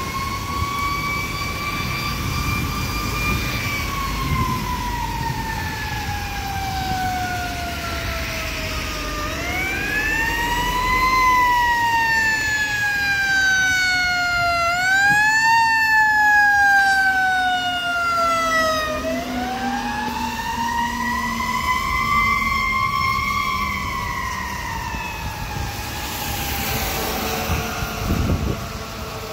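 Fire engine siren wailing, its pitch held high at first, then sliding slowly down and back up several times. The wail fades near the end as the engine moves away.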